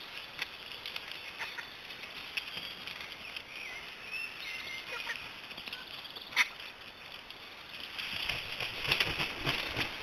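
Griffon vultures squabbling over a carcass: harsh calls and scattered clicks and knocks, with one sharp click about six seconds in and busier, louder activity near the end.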